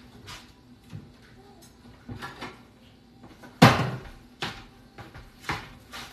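Kitchen cupboard being worked: a sharp bang a little past halfway through, with a few lighter knocks and clicks before and after it.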